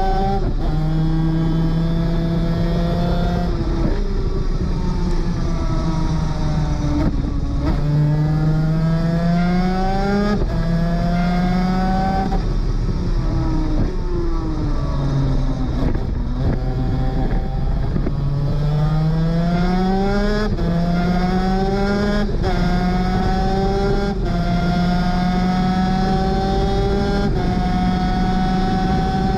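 Superkart 250's two-stroke engine at racing speed. The pitch climbs and drops sharply at each upshift, falls through the middle as it slows and shifts down, then climbs through the gears again and holds high near the end.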